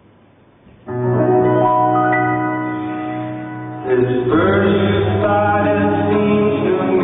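Ice dance program music starts suddenly about a second in with sustained chords. A fuller section with more movement comes in at about four seconds.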